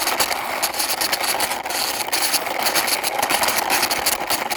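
Toy dump truck pushed along by hand, its small wheels and plastic body giving a steady rattling whir with many small clicks.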